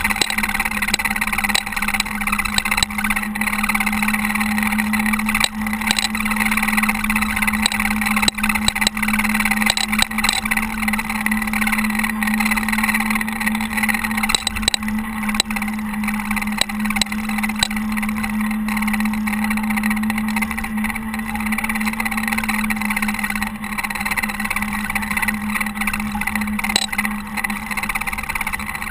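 Caterpillar TH330B telehandler's diesel engine running steadily, with a constant hum and a few faint clicks.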